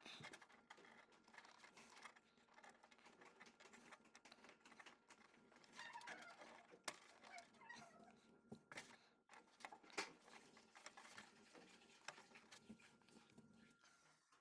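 Faint, irregular small clicks and rustles of handling in a quiet room.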